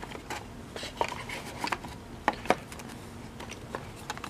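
Light clicks and taps of a jointed fishing lure and its treble hooks being laid into a cardboard lure box, followed by cardboard lure boxes being handled. The two sharpest clicks come about two and a half seconds in.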